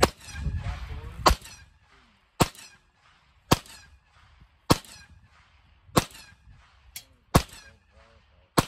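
Gunshots: a firearm fired in quick succession, about eight sharp shots a little over a second apart, each with a short echo.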